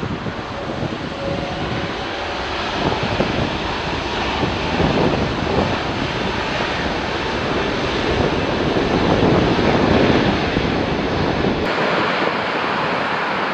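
Jet engine noise from a British Airways Airbus A380 after touchdown, its four Rolls-Royce Trent 900 turbofans making a steady rushing roar that swells to its loudest about ten seconds in. Near the end the sound changes abruptly and loses its low rumble.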